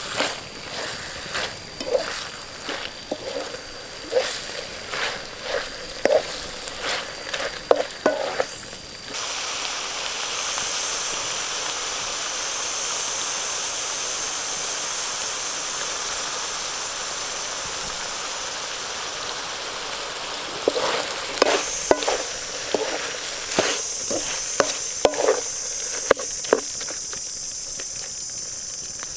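Snails in curry paste sizzling in a pan while a spatula stirs and scrapes them. There are irregular scraping strokes for about the first nine seconds, then a steady sizzle, then stirring strokes again from about twenty seconds in.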